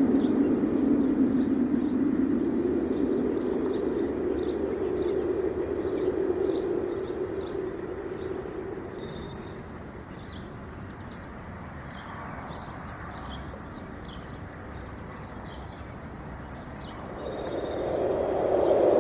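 Wind gusting, easing off about halfway through and rising again near the end, with small birds chirping repeatedly throughout.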